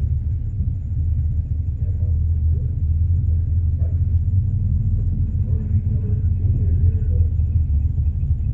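Plymouth Road Runner's V8 with a four-barrel Edelbrock carburettor idling, a steady deep rumble heard from inside the cabin.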